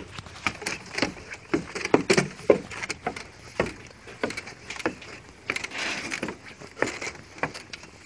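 Hurried footsteps on wooden deck boards and steps, irregular knocks about two a second, with rustle of the phone being carried.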